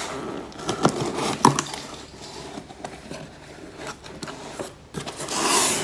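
Cardboard shipping box being opened: a few sharp clicks and snips as scissors cut the packing tape, then rustling and scraping of cardboard as the flaps are pulled open, with a longer, louder scrape near the end.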